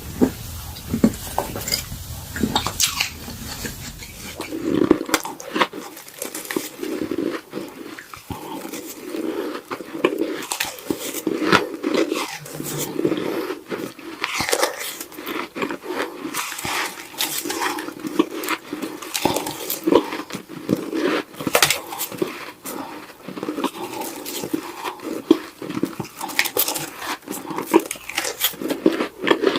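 Close-miked biting and chewing of frozen snow: a dense run of crisp crunches, one after another. A low background hum drops away about five seconds in.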